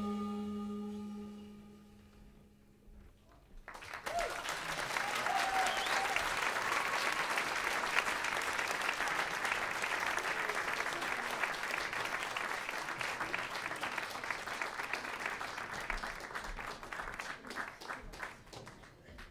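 The band's last held note dies away over about two seconds, and after a brief hush the audience breaks into applause a little under four seconds in, the clapping thinning out near the end.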